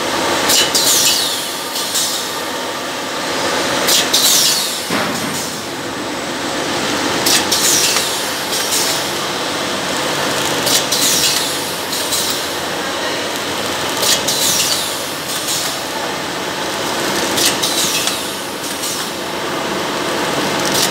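Liquid pouch packing machine running, a steady mechanical clatter with a short pair of high hisses that fall in pitch repeating about every three and a half seconds, in time with its pouch-forming cycle.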